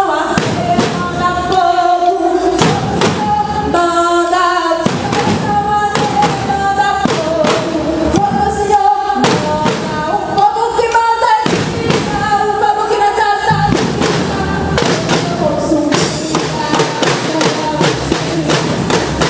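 Percussion band of drums playing a driving beat under voices singing a gospel hymn; the singing stops about two-thirds of the way through, leaving the drums playing on their own.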